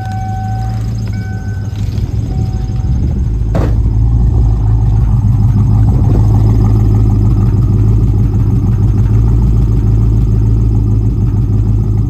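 A 1995 Mustang GT's 302 (5.0 L) V8 idling rough with a misfire, getting louder toward the tailpipe. A few short beeps sound in the first three seconds, and a car door shuts with a knock about three and a half seconds in.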